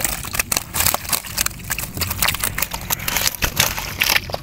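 Live tilapia in a mesh keepnet flapping and knocking against the floor of a wooden boat, a rapid, irregular clatter, with water splashing and dripping off the net as it is hauled aboard.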